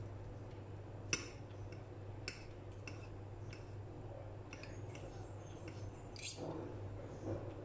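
Two metal forks scraping and clinking against a ceramic plate as they pull soft mozzarella apart, with a few sharp clinks scattered through, the loudest about a second in and again near the end.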